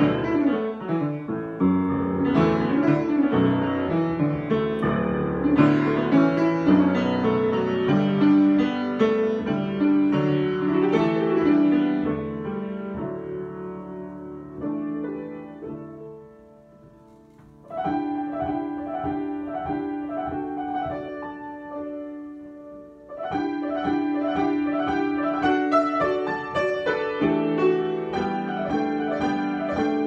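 Solo grand piano improvisation: a dense passage of chords and runs fades away about halfway through, then the playing resumes with a repeated figure that briefly drops back and picks up again.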